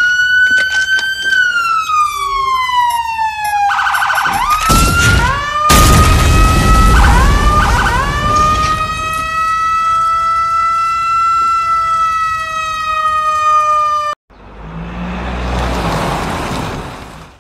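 A fire-engine siren wails, its pitch rising and then sliding down. A loud rush of noise comes in around four to six seconds in, and the siren climbs again and holds a steady high tone until it cuts off suddenly. A whoosh then swells and fades away.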